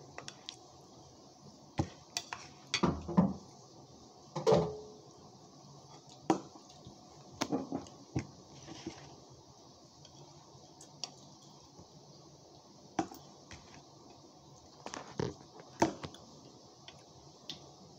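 Metal spoon clinking and scraping against a bowl during eating, in irregular taps with a few louder knocks.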